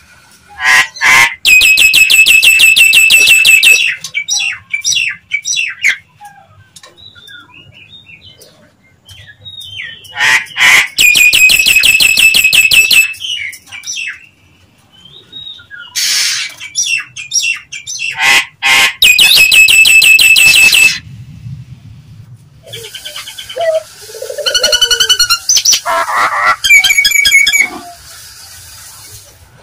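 Nias hill myna calling: four loud bouts of harsh, rapidly pulsed calls a few seconds each, with quieter short notes between them.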